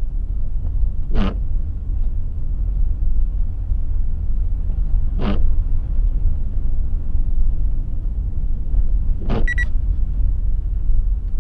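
Steady low road and engine rumble inside a moving car, picked up by a dashcam. Three short sweeping sounds come about four seconds apart, and a brief high beep sounds just after the third.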